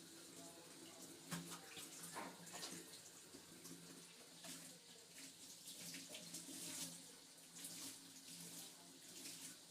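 Faint tap water running and splashing in a kitchen sink during washing up, with a few light knocks scattered through.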